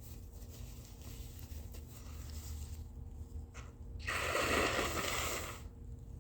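A person blowing a very snotty nose into a tissue: one wet, noisy blow lasting about a second and a half, starting about four seconds in.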